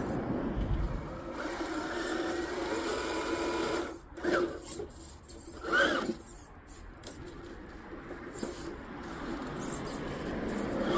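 RC rock crawler's electric motor and geared drivetrain whining steadily as it crawls, stopping about four seconds in, followed by two short bursts of motor noise and faint clicks.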